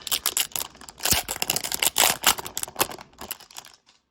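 Hockey trading cards being handled close to the microphone: a quick run of irregular clicks, snaps and rustles as cards are shuffled and flipped. It stops shortly before the end.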